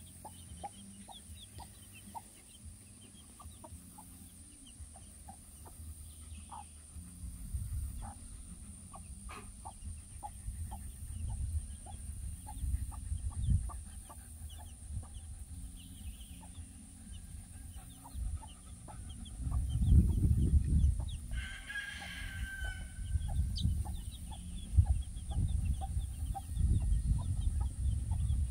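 Mother hen clucking in short, soft calls among her two-day-old chicks' peeping, with one louder call a little after the middle. Bursts of low rumbling noise, loudest about two-thirds of the way in, run under the calls.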